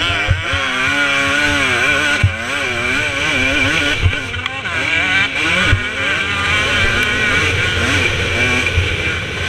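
2017 KTM 250 SX two-stroke motocross engine revving up and down, its pitch rising and falling again and again as the throttle is worked and gears change, with a few short thumps.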